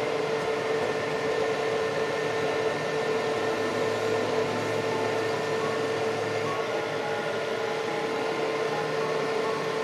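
Metal lathe running steadily with a constant tonal whine while twist drills in the tailstock chuck drill into a spinning bushing blank.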